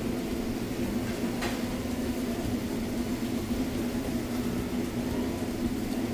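A steady machine hum, like a motor or fan running, with one faint click about a second and a half in.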